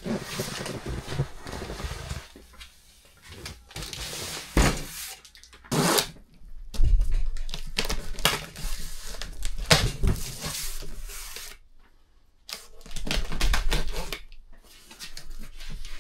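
A large cardboard shipping box being handled: knocked and set down with a few dull thumps, its packing tape slit with a blade, and the flaps folded open, with irregular scraping, rustling and sharp knocks.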